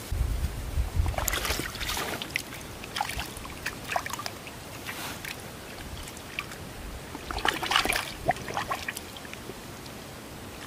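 Water sloshing and splashing in a water-filled bag as hands move about inside it, in irregular bursts, opening with a brief low rumble of handling.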